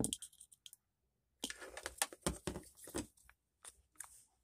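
Hands handling multimeter test leads and a small plastic switch: scattered light clicks, taps and rustles, with a moment of dead silence about a second in.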